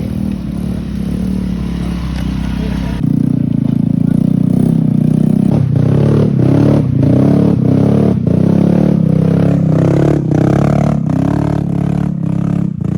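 Motorcycle engine running under way, growing louder about three seconds in, with repeated knocks and rattles through the second half.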